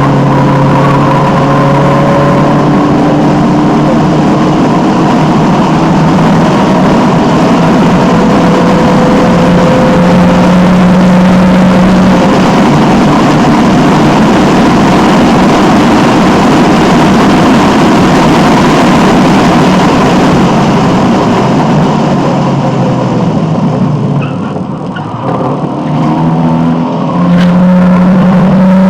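Alfa Romeo 1750's twin-cam four-cylinder engine running hard under racing load, heard from inside the car, its pitch climbing repeatedly as it pulls up through the revs. About 24 s in it falls away briefly as the throttle is lifted, then comes back at full strength near the end.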